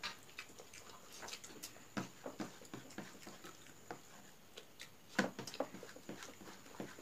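Eating rice and boiled egg by hand from metal plates: irregular soft clicks and smacks of fingers, food and mouths, loudest a little after five seconds in.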